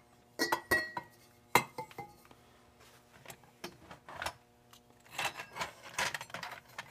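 Metal lantern parts clinking and knocking on a workbench as a lantern's fuel tank is set down. A few sharp knocks come in the first two seconds, one with a brief metallic ring. A longer run of lighter rattling and clinking follows from about four seconds in.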